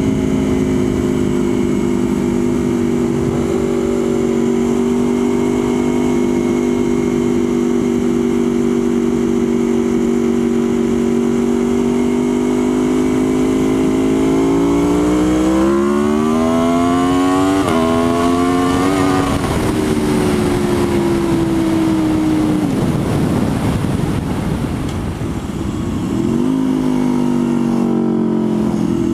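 Motorcycle engine under way: it holds a steady pitch at cruise, then about halfway through revs up through a gear change, then eases off and winds down, with one brief blip near the end.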